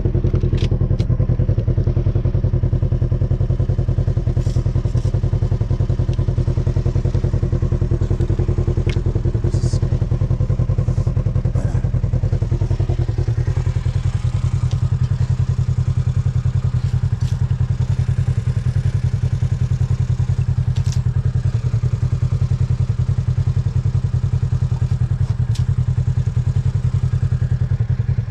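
Small engine running steadily, with a fast even firing pulse. About halfway through its upper tones drop away while the low drone carries on.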